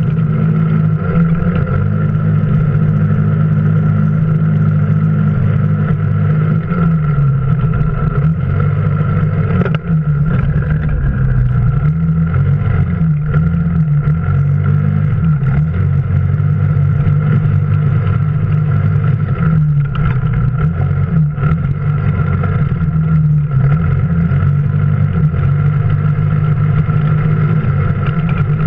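Off-road vehicle's engine running as it drives slowly over a rough dirt trail, its note rising and falling with the throttle, with a steady high whine alongside.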